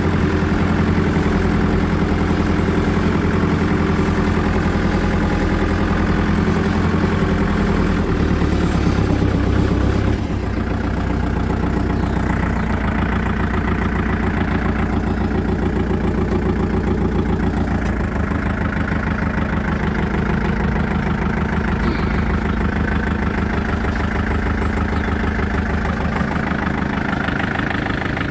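Compact tractor's engine running steadily as the tractor is driven, heard from the driver's seat; about a third of the way in it drops to a lower, quieter note and runs on evenly.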